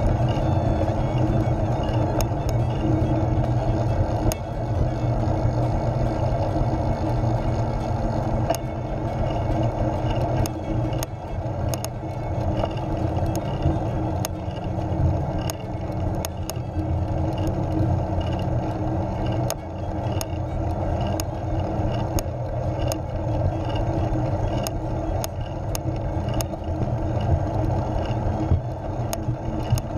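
Recumbent trike rolling along a paved trail: steady tyre and road rumble with wind on the microphone and scattered small clicks and rattles.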